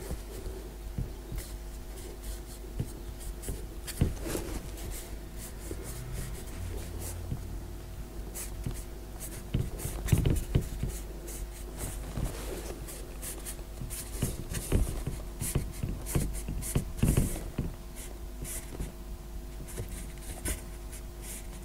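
Felt-tip marker writing numerals on a board: short strokes, one after another, over a faint steady hum.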